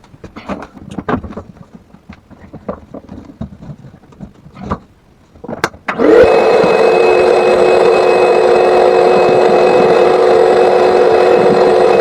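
Scattered knocks and clatter of equipment being handled, then about halfway through an electric motor switches on, spins up quickly and runs loud and steady at a constant pitch.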